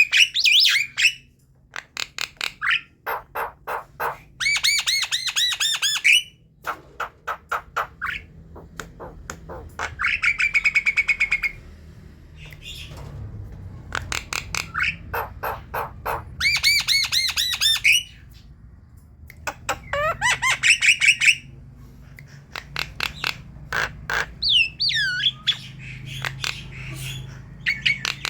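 Javan myna (jalak kebo) chattering: bouts of rapid clicks and quick, repeated whistled notes, broken by short pauses.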